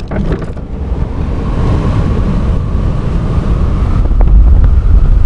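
Rushing wind buffeting the microphone in the open cockpit of a Cimbora primary glider during a winch launch, a dense low rumble that grows louder as airspeed builds.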